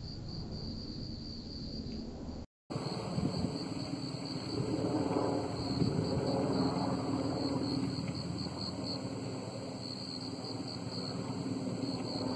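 Crickets chirping steadily. After a brief cut about two and a half seconds in, a helicopter's rotor rumble comes in under the chirping and swells for a few seconds before easing.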